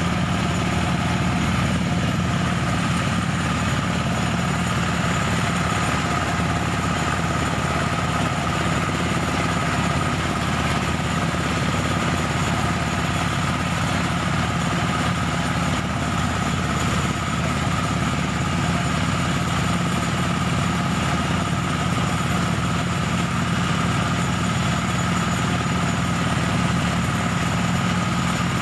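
Small engine-driven rice thresher running steadily, a constant engine hum with the threshing drum turning as rice stalks are fed in.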